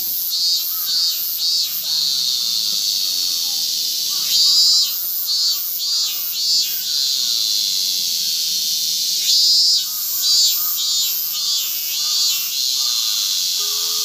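Cicadas singing in chorus: a steady, high, sizzling hiss, with a louder song cutting in over it in runs of pulsed phrases about two a second. These runs come near the start, around the middle and again later on.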